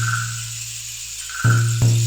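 Native American drum beaten in a quick pair of strokes about a second and a half in, its deep boom ringing on between beats, over a steady high hiss and a short mid-pitched call at the start.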